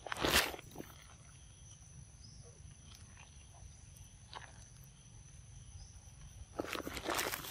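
Young macaques biting into and chewing ripe mangoes: a loud wet bite about a third of a second in, a few soft clicks of chewing, and a cluster of bites and crunches near the end.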